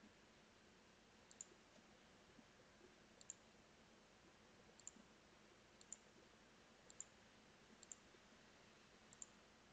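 Faint computer mouse clicks over near-silent room tone: about seven of them, spaced a second or so apart, each a quick double tick.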